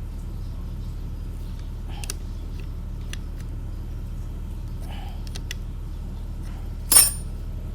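Light clicks of metal tools and alternator parts being handled during bench reassembly, with one loud sharp clack about seven seconds in, over a steady low hum.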